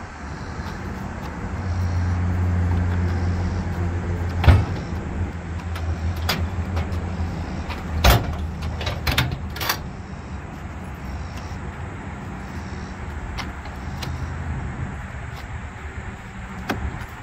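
A diesel truck engine idling steadily, with sharp metal clanks from the steel toolbox under a flatbed trailer as equipment is stowed: one about four and a half seconds in, then several between about eight and ten seconds in.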